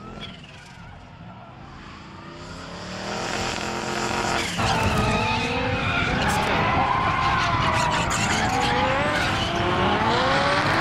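Drift cars sliding with tyres skidding and engines revving at high rpm, the revs rising and falling as the throttle is worked. Fainter at first, it steps up suddenly about four and a half seconds in to a close, loud run of engine and tyre noise.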